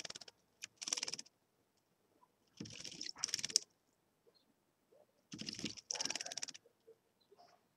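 A redstart bathing in a shallow dish of water, beating its wings to splash in short, rapid fluttering bouts: one about a second in, then two double bursts around three and six seconds.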